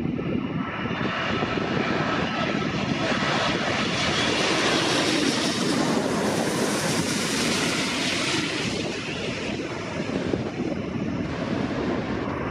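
Jet airliner passing low overhead on final approach to land, its engine roar and rush of air swelling to a peak about six seconds in and then fading.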